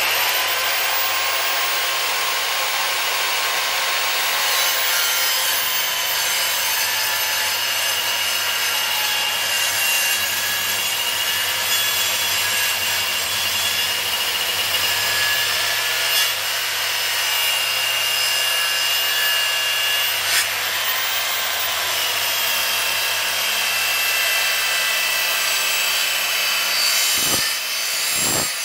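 Handheld electric circular saw cutting through a thick timber brace: it starts suddenly and runs steadily, a rasping cut with a steady high whine from the blade and motor.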